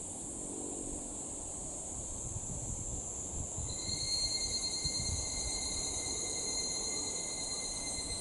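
Higurashi (evening cicadas, Tanna japonensis) calling over a steady high-pitched insect chorus. A clear ringing call starts about three and a half seconds in and holds. A low, uneven rumble runs underneath.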